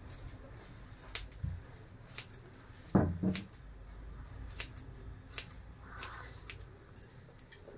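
Hair-cutting scissors snipping through the ends of long hair, single snips about once a second. A louder dull double thump comes about three seconds in.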